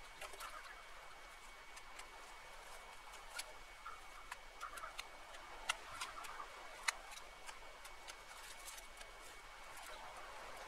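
Dry twigs and branches snapping and clicking as a brush pile is pulled apart by hand: scattered sharp cracks at an irregular pace, two louder ones a little past the middle.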